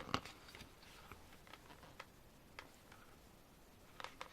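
Faint handling of an album photo book: a few soft, scattered clicks and paper sounds as its pages are turned.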